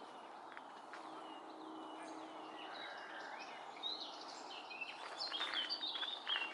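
Birds chirping and singing, a few short falling notes at first, then busier and louder warbling chirps in the second half, over steady outdoor background noise.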